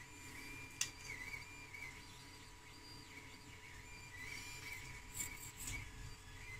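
Faint handling sounds as a plastic wheel is pushed onto the shaft of a small N20 metal gear motor, a stiff fit: a single click about a second in and a few short clicks and scrapes later on. A faint wavering high whistle-like tone runs underneath.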